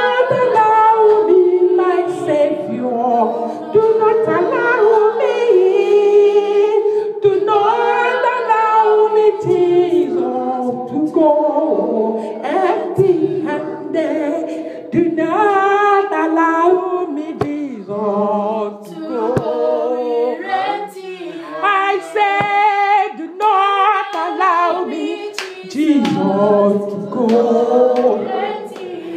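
A group of voices singing a praise and worship song unaccompanied, in long sung phrases.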